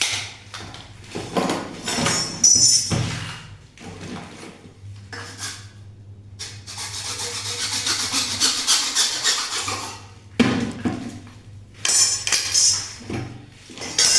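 Hacksaw cutting through a CPVC pipe: a steady run of back-and-forth saw strokes for about three seconds in the middle. Knocks and clatter from handling the pipe pieces come before and after it.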